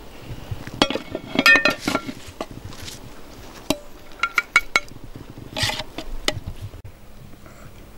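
Ceramic serving plates and a metal pot clinking against each other as cooked rice is served onto the plates. The sharp, ringing clinks come in clusters: about one to two seconds in, again around four to five seconds, and once more near six seconds.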